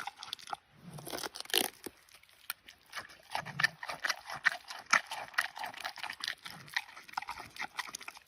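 Giant panda biting and chewing pumpkin, with irregular wet crunches and short pauses between mouthfuls.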